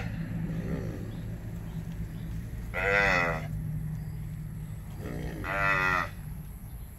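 Cattle mooing: two loud, drawn-out moos about three seconds and five and a half seconds in, with a faint short one near the start.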